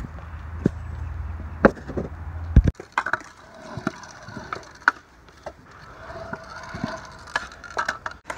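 Skateboard wheels rolling on concrete with a steady low rumble, broken by a few sharp clacks of the board. About two and a half seconds in the rumble stops suddenly, and a stunt scooter rolls on concrete with scattered clicks and knocks.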